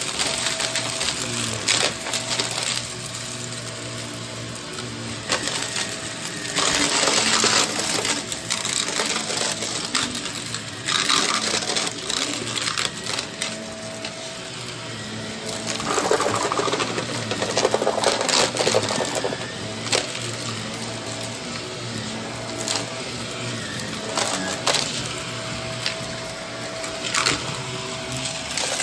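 Close-up ASMR trigger sounds: rapid tapping and clicking on hard objects, with bursts of scratchy rustling, over a faint steady hum.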